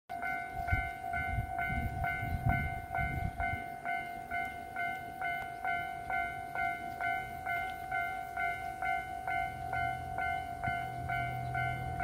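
Japanese level-crossing warning bell ringing, an electronic ding repeating about twice a second. From about nine seconds in, the low steady hum of the approaching 2700 series diesel train joins it.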